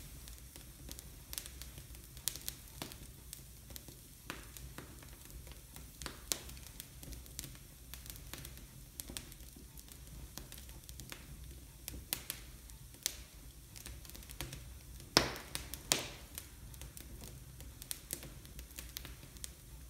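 Wood fire burning in an open fireplace, crackling with irregular small pops and two louder pops about three-quarters of the way through.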